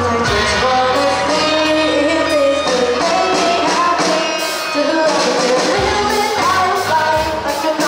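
A live rock band playing a song with a female lead singer, with drums, bass and guitars behind her voice.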